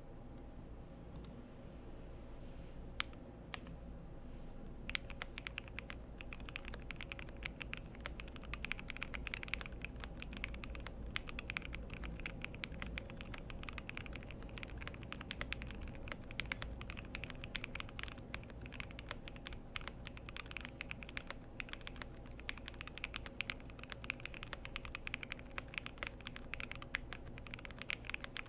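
Typing on a FinalKey v65 gasket-mounted custom mechanical keyboard with lubed Jwick Yellow v2 linear switches, a PC plate, foam and PBT keycaps. A few single keystrokes come first, then steady, fast typing from about five seconds in.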